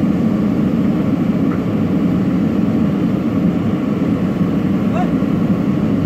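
JCB backhoe loader's diesel engine running steadily under a light load while the bucket is held just above a concrete culvert pipe.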